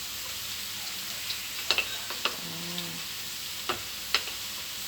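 Fried rice sizzling in a pan with a steady hiss, while a spatula stirring it clicks sharply against the pan several times.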